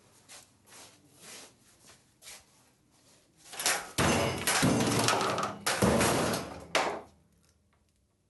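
A few faint knocks, then a loud spell of banging and clattering starting about three and a half seconds in, with fresh bangs about a second apart, stopping sharply about three seconds later.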